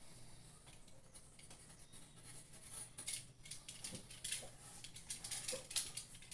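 Irregular scratching, rustling and small clicks of carpet being handled and fitted onto a small speaker box as it is lined.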